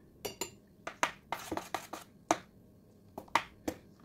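Metal fork clicking irregularly against a stainless steel bowl while stirring flour into a thick fish-roe batter, about a dozen sharp clinks.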